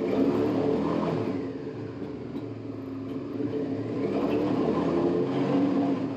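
Suzuki SV650's 90-degree V-twin engine running and being revved twice, the revs rising near the start and again in the second half. The revving is for a stator output voltage test on the last phase, which turns out within spec.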